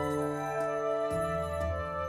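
Background music: soft sustained organ-like keyboard chords with a light steady beat, changing chord about halfway through.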